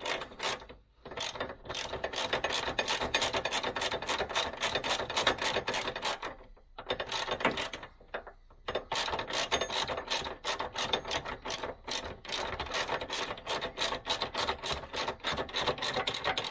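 Hand ratchet clicking quickly and evenly, about six clicks a second, as a nut is run up on a bolt. It comes in runs, with short breaks about a second in and twice around the middle while the handle is repositioned.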